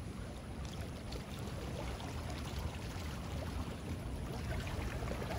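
Steady waterside noise of wind and water, heaviest in the low end, with no clear engine or voice.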